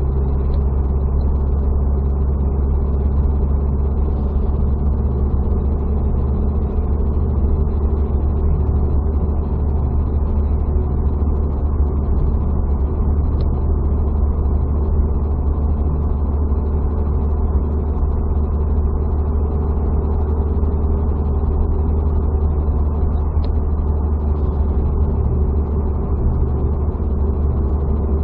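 Steady engine and road rumble of a car driving at about 70 km/h, heard from inside the cabin.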